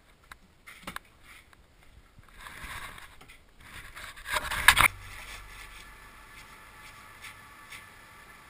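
Handling noise from a camera being moved about: scattered knocks and rustling, and one loud thump a little past the middle. After the thump a faint steady low hum is left.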